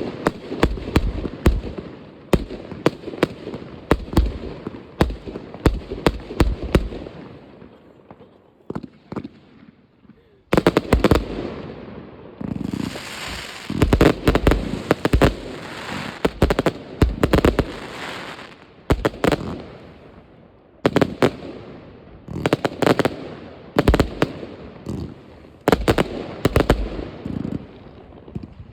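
New Year's Eve fireworks: a rapid, irregular run of sharp bangs from rockets, shells and firecrackers with crackling between them. It thins out about eight seconds in, then starts again abruptly near ten and a half seconds and is densest in the middle.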